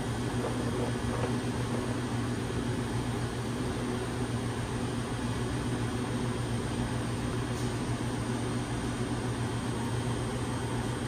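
Steady mechanical hum and hiss of commercial kitchen machinery running, with a constant low tone and no change throughout.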